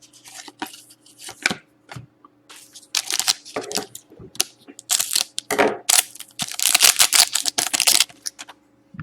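Hockey card pack wrapper being torn open and crinkled by hand, a run of irregular rustling and tearing bursts that grow louder and denser through the middle and latter part.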